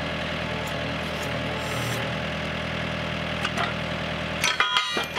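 Tractor engine idling steadily, driving a three-point-hitch hydraulic log splitter as its wedge presses down on a steel tube to flex a bend out of it. Near the end come a few sharp metallic clanks with a short ring of steel.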